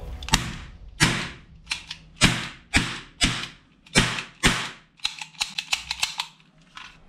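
Toy cap-gun revolver firing caps: about eight sharp bangs, roughly two a second, followed by a quick run of lighter clicks.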